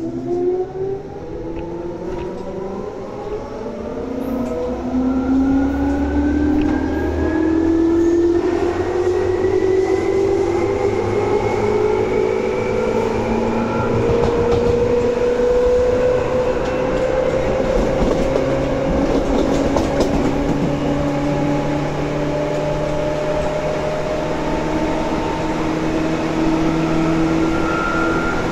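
Seibu 2000 series electric train accelerating: the traction motors and gears whine in several tones that rise steadily in pitch for about the first half, then settle into a steady hum at running speed over the rumble of the wheels on the track.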